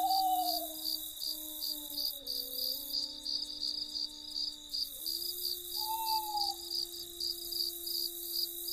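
Crickets chirping in an even rhythm of about three chirps a second over a continuous high insect trill, with soft sustained low tones that shift in pitch beneath.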